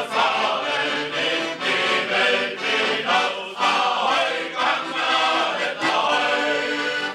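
Men's shanty choir singing a sea shanty to accordion accompaniment.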